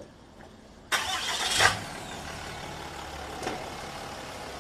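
Pickup truck's engine running up close. It comes in abruptly about a second in, with one sharp knock shortly after, then runs on steadily.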